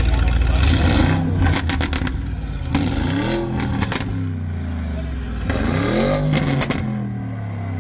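Porsche Cayenne Turbo S's twin-turbo V8 blipped three times from idle, the revs rising and falling each time. Rapid pops and bangs crackle from the exhaust after the first and last blips.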